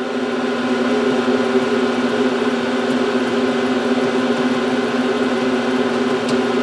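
Steady electrical hum with several even tones from the powered machine's electrical cabinet. It holds unchanged, with no relay click as the reset is pressed: the relay does not pull in.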